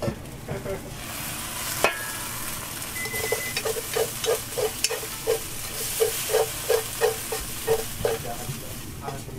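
Wooden chopsticks scraping fried udon noodles out of a tilted frying pan into a steel bowl, knocking against the pan in a regular run of about three short, ringing knocks a second from about three seconds in, over a steady frying sizzle.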